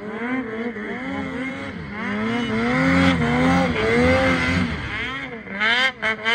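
Snowmobile engine revving up and down over and over as the sled ploughs through deep powder, loudest in the middle, with the revs cutting in and out near the end.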